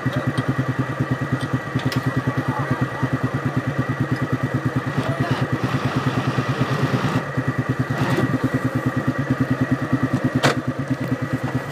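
Vehicle engine idling with a fast, even pulse, and two sharp clicks in the second half.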